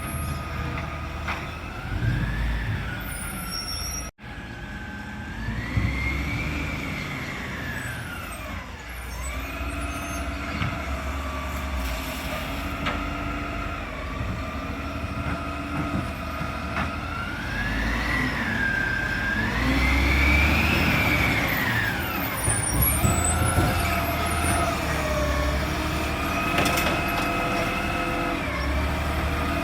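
Garbage truck running, its engine and hydraulic whine sweeping up in pitch and back down several times as it revs.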